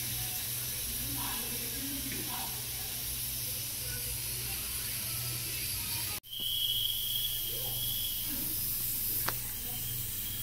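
Steady cooking hiss from an aluminium pot of moringa leaves wilting over the stove's heat. There is a short break just after the middle, then a brief high steady tone.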